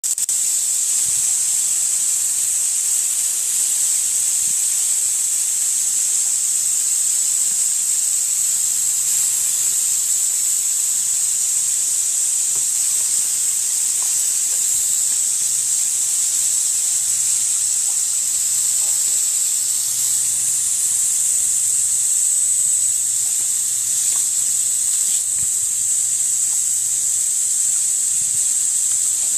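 Garden hose spray nozzle shooting a steady jet of water, a constant high-pitched hiss that never lets up.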